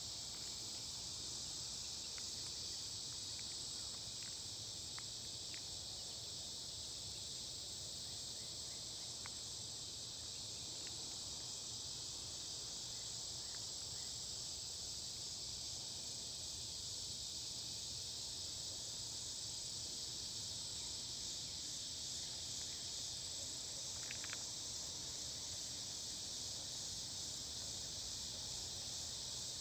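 Steady evening chorus of insects, a dense high-pitched sound that never lets up, with a few faint ticks and one brief chirp about three-quarters of the way through.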